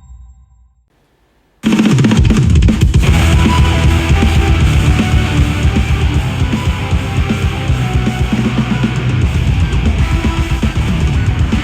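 Rock music with a driving drum kit and heavy bass, played through a smart speaker and picked up by a microphone; it starts abruptly after a second or so of near silence as the previous music fades out.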